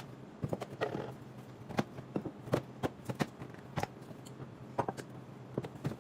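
Irregular clinks and knocks of jars, bottles and cartons being picked up and set down as a fridge shelf is emptied, over a low steady hum.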